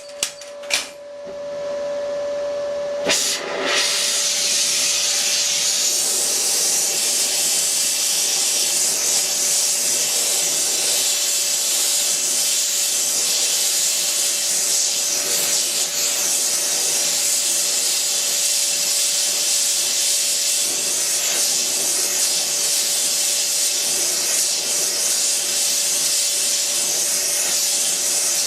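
A gas torch lit about three seconds in, after a few clicks, then burning with a steady loud hiss as it heats a seized broken stud to free it.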